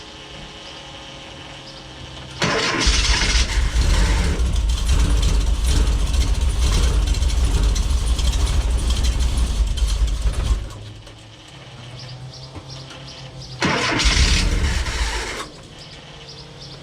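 Subaru boxer engine in a VW T3 van being cranked and run after its injectors have just regained power, going loud with a deep rumble a couple of seconds in for about eight seconds, then dropping off. A second short loud burst follows near the end, with a steady low hum before and after.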